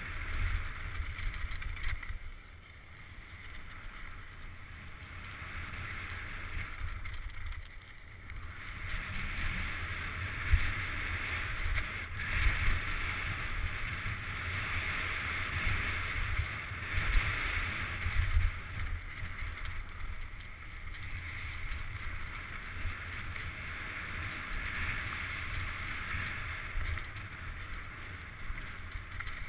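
Wind buffeting a helmet-mounted camera during a fast mountain-bike descent, over the hiss of tyres rolling on a packed dirt and gravel trail, with sudden thumps from bumps. It eases off between about two and eight seconds in.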